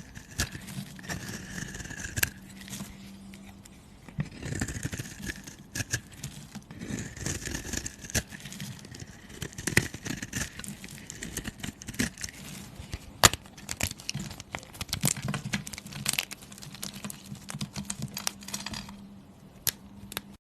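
Irregular crackling, clicking and scraping of a material being handled up close, with many sharp clicks over a faint steady hum.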